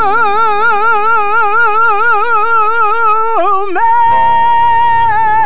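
Background music: a solo voice sings long held notes with a wide, even vibrato. About three and a half seconds in the line dips and slides, then settles on a higher steady note held without vibrato.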